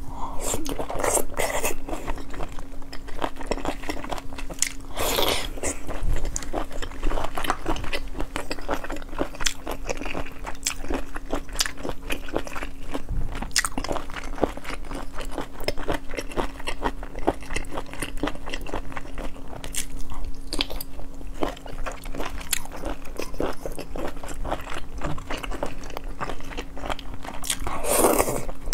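Close-miked chewing and biting of dipped sea snail meat: a dense run of wet mouth clicks and smacks, with a few longer hissy sounds about a second in, around five seconds and near the end.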